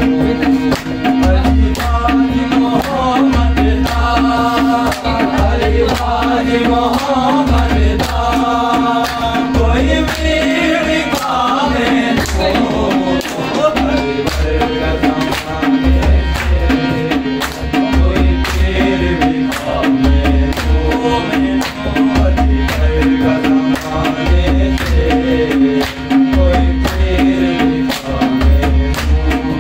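Music with fast hand-drum strokes over a steady bass beat that repeats about every second and a bit, with a bending melody above.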